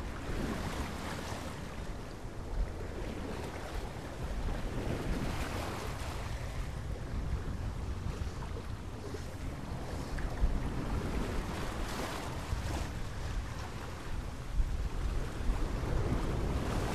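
Rushing surf and wind noise, swelling and fading every few seconds over a steady low rumble.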